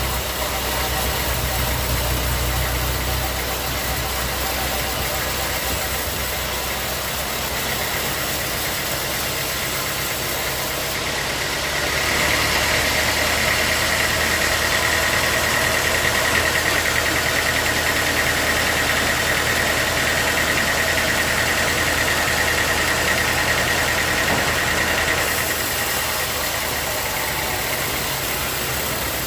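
Sawmill machinery running steadily. About twelve seconds in it grows louder and a high, steady whine joins, then it eases back to a plain hum about twenty-five seconds in.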